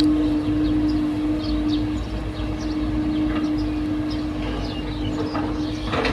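A motor running steadily, a constant hum over a low rumble.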